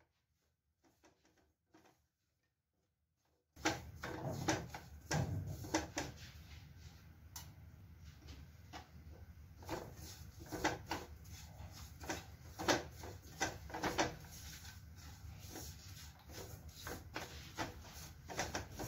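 Silicone spatula scraping and tapping against a nonstick kadhai while stirring a crumbly mix of wheat flour, semolina and gram flour roasting in ghee. Near silence for the first few seconds, then irregular scrapes and light knocks.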